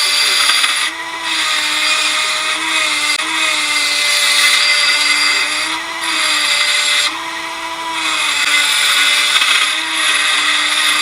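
Small handheld power tool running steadily while its bit grinds into metal, throwing off dust. The grinding breaks off briefly about a second in, around six and seven seconds, and near ten seconds, while the motor's whine carries on.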